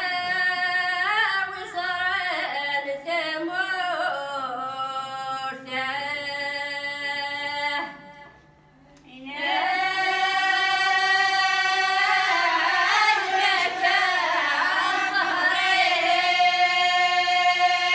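Group of Kabyle women singing together unaccompanied, in two phrases. There is a short break about eight seconds in, and the second phrase ends on a long held note. A faint steady hum runs underneath.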